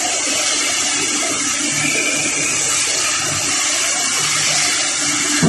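Steady, loud rushing hiss of a spiral welded pipe mill's machinery running in the hall, even throughout, with a faint low hum underneath.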